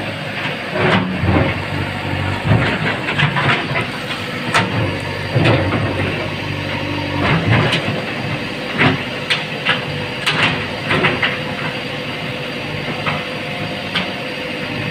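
John Deere 5042 D tractor's three-cylinder diesel engine running steadily, heard from the driver's seat, with repeated sharp clanks and rattles over the first two-thirds that thin out near the end.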